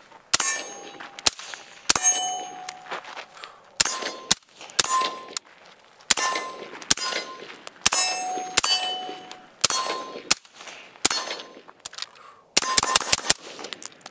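Suppressed AR-15-pattern rifle fired shot after shot, most shots followed by the brief metallic ring of a hit steel target. The shots come about one every half-second to a second, with a quick string of about six near the end.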